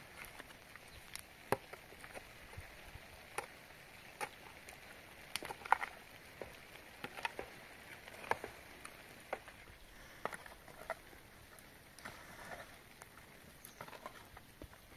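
Faint, irregular light taps and clicks with a few sharper knocks, at no steady rhythm, over a faint steady hiss.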